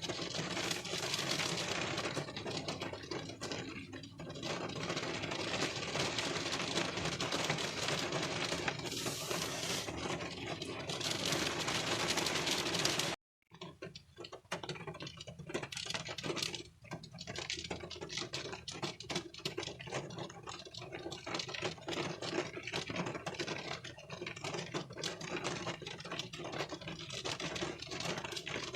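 Rain drops pattering densely on a car's windshield, heard from inside the car as a steady hiss full of small irregular ticks. The sound cuts out completely for about half a second near the middle.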